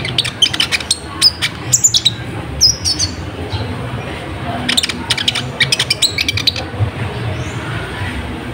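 Kolibri ninja, a sunbird, singing a rapid, sharp twittering song of quick high chirps and short falling notes, in two spells: one at the start and a second, about two seconds long, a little under halfway through.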